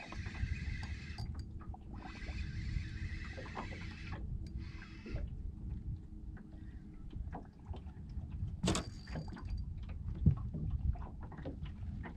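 Wind rumbling on the microphone while a spinning reel is cranked in stretches to fight a bass on the line. Scattered small clicks, and one sharp knock a little under nine seconds in.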